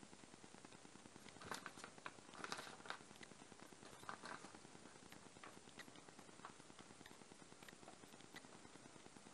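Faint crinkling of a plastic packet of starch powder being handled, in two short bursts of crackles, with scattered soft ticks in between.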